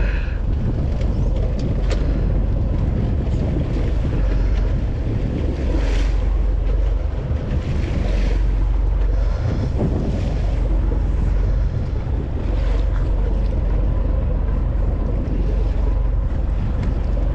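Steady wind rumbling on the microphone on a boat at sea, mixed with the wash of the water.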